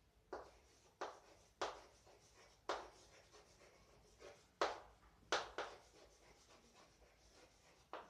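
Handwriting: a series of short strokes at uneven intervals, about eight in all.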